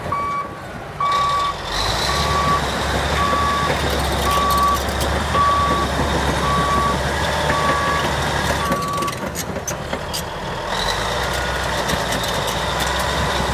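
Caterpillar D8N bulldozer's backup alarm beeping about once a second, nine beeps in all, stopping about nine seconds in, over the steady drone of its diesel engine.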